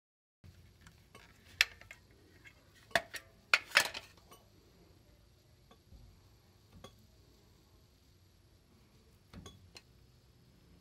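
A few sharp clinks and taps of small hard objects being handled. Most come in the first four seconds, with a smaller cluster near the end.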